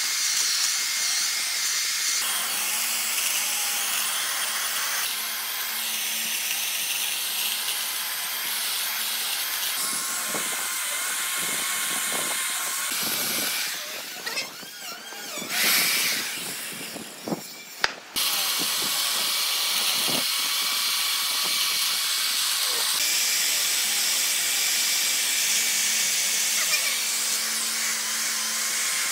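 Power equipment working wood, running with a steady hiss. It drops away for a few seconds past the middle, with one short louder burst and a couple of sharp clicks, then runs on.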